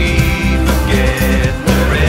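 Music: a song with steady held bass notes under sustained chords.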